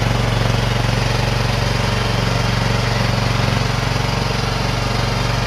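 Small engine of a mini stand-up ride-on skid steer running steadily at constant speed, a low, even hum with no change in pitch.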